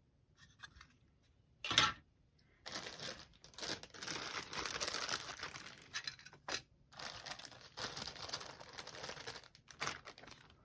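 Plastic bag crinkling and rustling as it is handled, after a quiet start with one sharp rustle about two seconds in.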